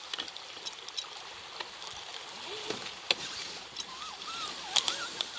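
Dry fallen leaves rustling and crackling with scattered sharp snaps, as an RC scale crawler truck creeps over leaf litter.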